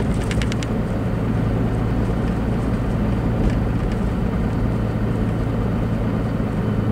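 Truck interior while driving: a steady low engine hum and road noise heard from inside the cab, with a short run of quick ticks at the start.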